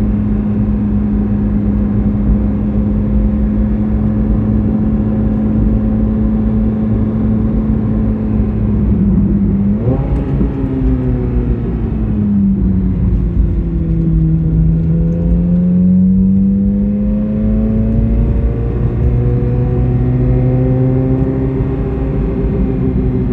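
Chevrolet Corvette C8 Z06's flat-plane-crank V8 running steadily under way. About ten seconds in the engine note jumps up sharply, then sinks lower and climbs again before falling near the end.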